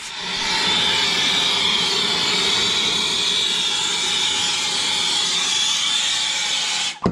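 Gas torch flame hissing steadily while heating a copper refrigerant line joint for soldering; the hiss builds in over the first half second and cuts off suddenly near the end.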